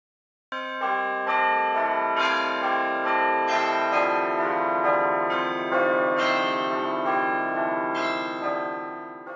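A peal of bells ringing, struck notes about two a second that overlap and ring on, starting about half a second in and fading out near the end.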